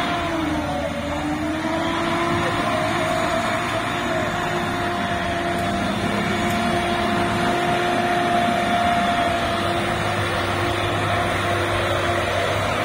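Diesel engine of a wheeled forestry skidder working through mud, with a steady whine over the engine noise. The whine dips in pitch about half a second in as the machine lugs, climbs back within a couple of seconds, and then holds steady.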